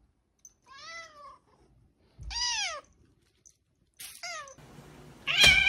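A cat meowing: a series of separate meows, each rising then falling in pitch, with a short one about four seconds in and the loudest near the end.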